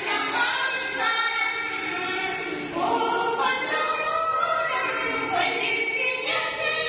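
A group of voices singing a traditional Malayalam Onam song (Onappattu) together in long held, gliding notes.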